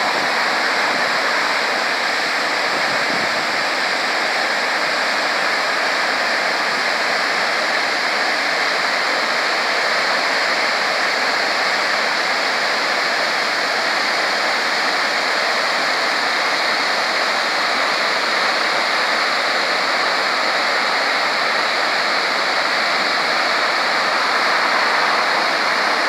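Fast, swollen river water rushing and churning in white water through a fish pass and over rocks: a steady, loud rush with no breaks.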